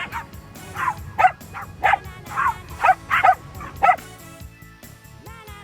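Small dogs yapping in excited play: a quick run of about ten sharp, high barks that stops about four seconds in, over a background children's song.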